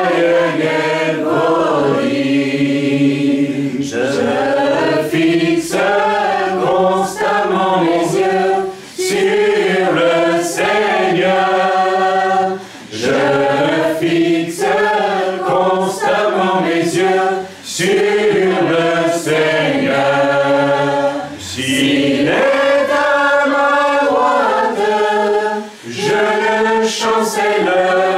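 A group of voices singing a worship song together, in phrases of a couple of seconds with brief breaks between them.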